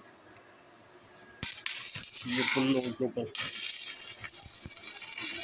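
Arc of a 250-amp inverter stick (MMA) welder struck about a second and a half in, then burning with a steady loud hiss as the electrode welds onto a steel plate.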